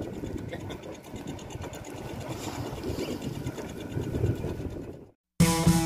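Fishing boat's engine running steadily with a rhythmic mechanical chug. It cuts out near the end and band music with guitar and drums starts.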